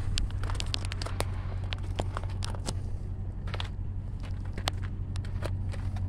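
Footsteps crunching on gravel with scattered sharp clicks and clinks of trailer hitch hardware and safety chains, over a steady low hum.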